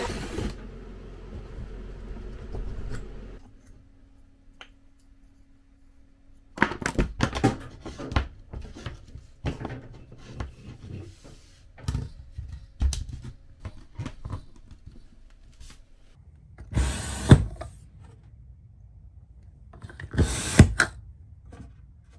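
A cordless drill with a hole saw cuts a hole in a countertop and stops just after the start, with lower noise lingering for about three seconds. After a quiet stretch come many scattered knocks and clatter as a pop-up outlet tower is handled and fitted into the hole, with two short, louder noisy bursts near the end.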